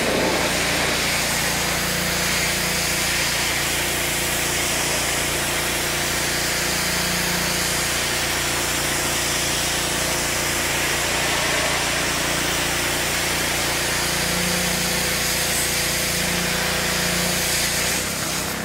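Pressure washer running and spraying a high-pressure jet of water: a steady motor hum under a wide, even hiss of spray.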